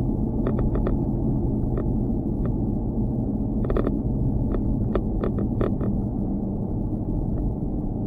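A steady low rumble with irregular sharp clicks and rattles, some in quick clusters, from a loose GoPro mount knocking against its fitting.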